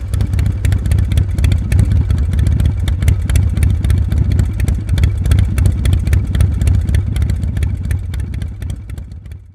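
Motorcycle engine running with a rapid, uneven pulsing beat and a deep rumble, fading out near the end.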